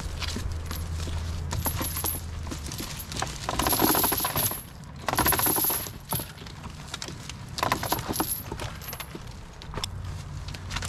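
Heavy half-inch steel transport chain clinking and rattling as it is handled, with two louder rattling runs about four and five seconds in.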